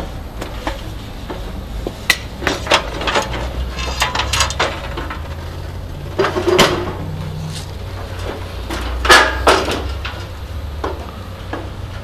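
Irregular knocks and clinks of metal greenhouse frame parts being handled during assembly of a roof window, with the loudest knocks about halfway through and again about three quarters of the way in. A steady low rumble runs underneath.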